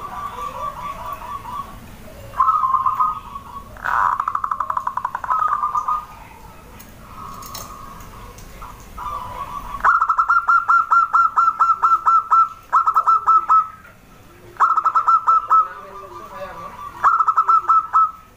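Zebra dove (perkutut) cooing: repeated bouts of fast, staccato trilled coos, each one to two and a half seconds long, louder in the second half. A softer, lower arched call recurs between the bouts.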